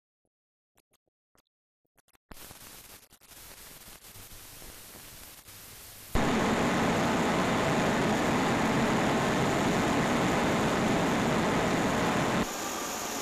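Near silence with faint crackles, then about two seconds in a steady hissing roar starts. It jumps much louder about six seconds in and eases back near the end: the A4 steam locomotive Sir Nigel Gresley running on the rollers of a locomotive test plant.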